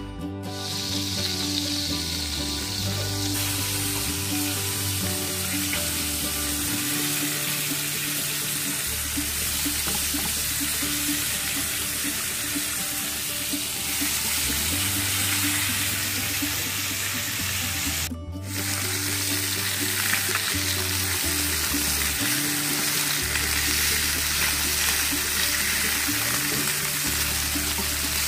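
Skin-on panfish fillets sizzling steadily as they fry in a frying pan, with background music underneath. The sound cuts out for a moment about two-thirds of the way through.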